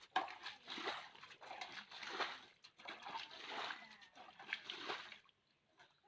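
Irregular splashing and sloshing in shallow water, stopping about five seconds in.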